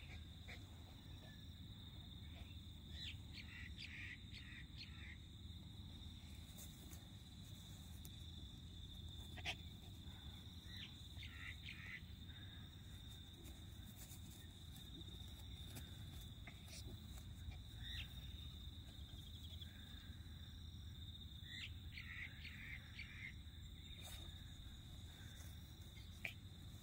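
Outdoor ambience: a steady high-pitched insect drone with birds chirping in short bursts a few times, over a faint low rumble. A sharp click comes about nine seconds in and another near the end.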